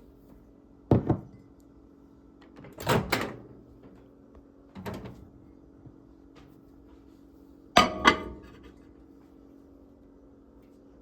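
Emerson MW8108P countertop microwave's door being handled: a series of clacks and thumps, a sharp double one about a second in, a longer one around three seconds, a smaller one near five, and the loudest, two sharp clacks, about eight seconds in. A steady low hum runs underneath.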